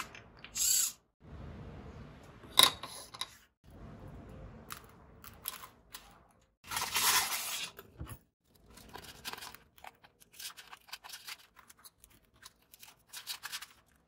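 Hands working with electronic parts on a polystyrene foam board: scattered clicks, with rubbing and rustling from the foam and jumper wires. One sharp click about two and a half seconds in is the loudest sound.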